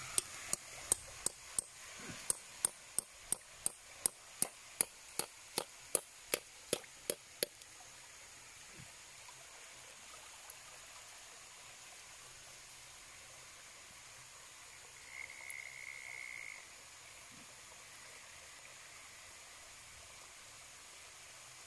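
A run of sharp, evenly spaced clicks, about three a second, for the first seven seconds or so, over a faint steady rush of creek water. A short high tone sounds briefly about fifteen seconds in.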